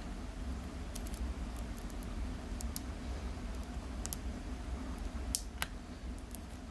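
Hook pick and tension tool working the pins of a Euro cylinder lock: scattered light metallic clicks, the sharpest two about five and a half seconds in, over a steady low hum.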